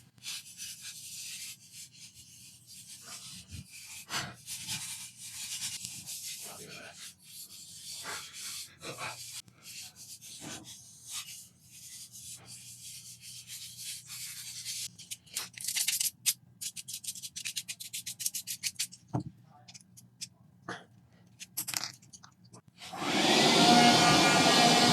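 Brush strokes scrubbing caked dust off a PlayStation 4's plastic housing parts: repeated short scratchy rubs with small clicks and knocks. Near the end a loud electric motor with a fan whine starts up and runs steadily.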